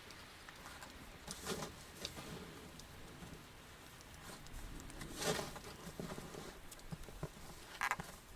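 A shovel working wet snow: a few short, soft scrapes and thuds, about a second and a half, five and eight seconds in.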